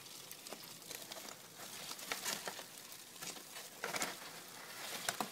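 Cardboard egg-crate flats in a dubia roach bin rustling and scraping as a hand shifts them, with irregular crinkles and a few sharper knocks, the loudest about four seconds in and just before the end.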